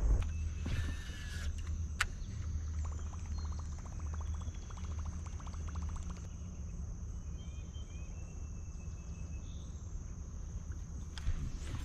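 A steady low rumble of wind and water around a fishing kayak, under a steady high drone of insects. About two seconds in there is a single click, then a quick run of ticks for a few seconds from a baitcasting reel being cranked.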